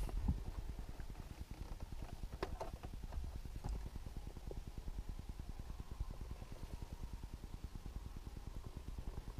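An engine idling: a low, fast, even throbbing that runs steadily throughout, with a few light clicks and knocks over it.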